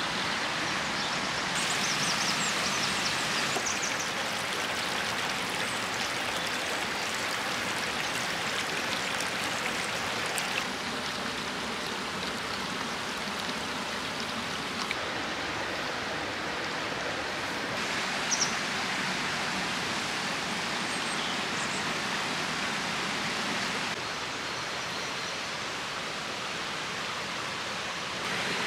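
Forest stream flowing over rocks and a small waterfall: a steady rush of water that shifts slightly in level a few times.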